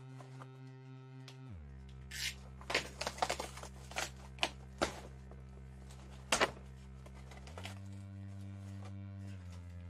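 Packaging torn open by hand: a run of sharp tearing and crinkling strokes from about two to six and a half seconds in. Underneath is background music of held keyboard chords that change every few seconds.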